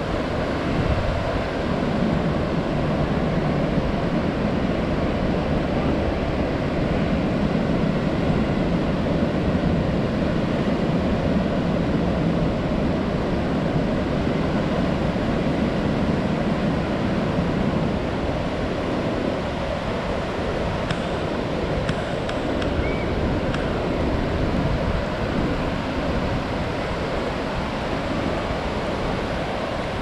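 Pacific Ocean surf breaking offshore and washing up a sandy beach: a continuous rushing wash of waves.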